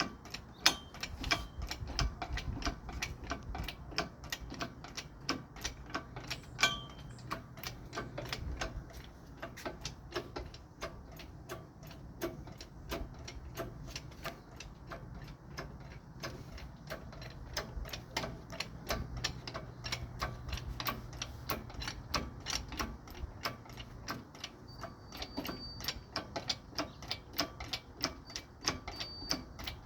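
A ratchet clicking in a long, fairly even run of quick clicks, several a second, over a faint steady low hum.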